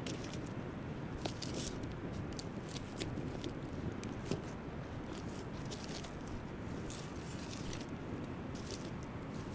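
Wood campfire crackling, with irregular sharp pops and snaps over a steady low rush. Pieces of wood knock and scrape as gloved hands arrange them in the fire.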